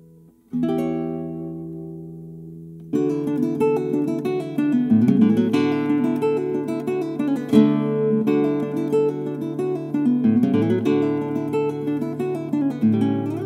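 Background acoustic guitar music: a chord rings out about half a second in, then steady plucked playing from about three seconds on.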